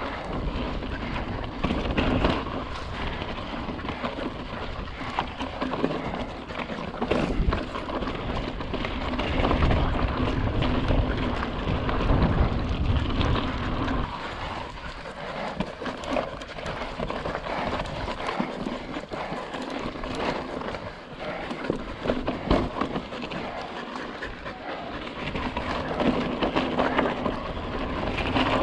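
Fezzari La Sal Peak hardtail mountain bike being ridden over rock and gravel: tyres crunching and rolling, with the frame and drivetrain rattling and knocking over the bumps.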